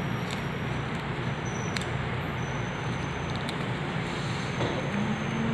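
Steady background noise, a low rumble with hiss, with a few faint clicks.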